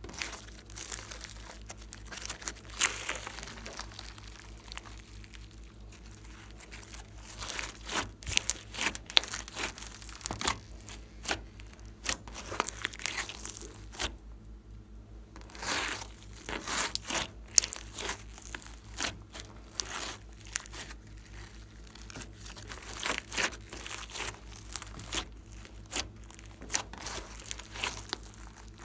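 Hands kneading and pressing a foam-bead slime: sticky crackling and popping in clusters, with a short lull about halfway through.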